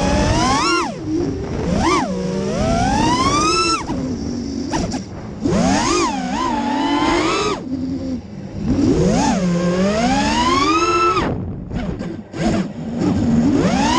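FPV quadcopter's brushless motors whining, the pitch sweeping up and down with the throttle. Three times it climbs in a long rising whine and then cuts off suddenly as the throttle is chopped, before spooling up again.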